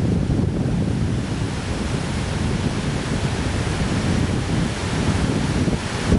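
Floodwater rushing steadily, with wind rumbling on the microphone.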